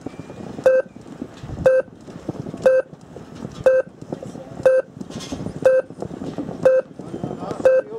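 Electronic race-start countdown timer beeping once a second, eight short identical beeps, marking off the final seconds before the start of a radio-controlled sailboat race.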